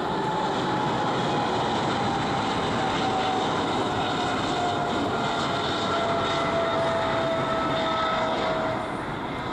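Boeing 777-300ER's twin GE90-115B turbofans at takeoff thrust during climb-out: a steady jet roar with a whine that slowly falls in pitch as the aircraft draws away. It grows a little quieter near the end.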